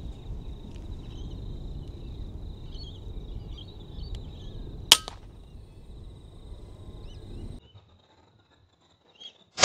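Low steady background rumble with a single sharp click about five seconds in. After a stretch of near silence comes a loud sharp crack with a brief ringing tail right at the end: a shot from a .22 FX Impact M3 PCP air rifle firing a slug at a rabbit.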